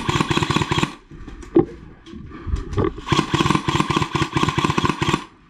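Paintball marker firing in rapid strings of shots: one burst ending about a second in, a short lull, then another burst of about two seconds.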